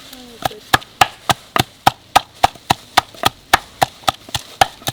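Steady, even wooden knocks, about three and a half a second, as leeks, hot peppers and garlic are broken down by hand for a seasoning.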